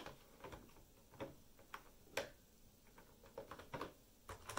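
Faint, irregular plastic clicks as the rear wheel lift of an Adventure Force toy tow truck is moved up and down by hand.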